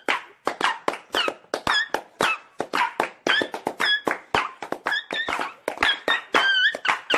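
A dog making short, high squeaky whines and yelps in quick succession, with sharp taps and knocks between them, about three to four sounds a second.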